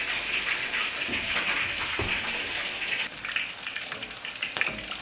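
Skin-on pork belly deep-frying in a wok of hot oil, with a dense crackling sizzle and many small pops. The spitting comes from water on the meat, not from the holes pricked in the skin. The frying eases somewhat about three seconds in.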